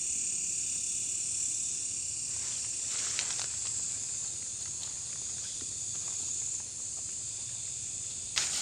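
Steady high-pitched chorus of night insects, with brief rustling around three seconds in and again near the end.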